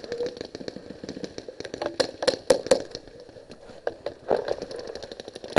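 Paintball markers firing: scattered sharp pops, with a quick cluster of louder shots about two seconds in.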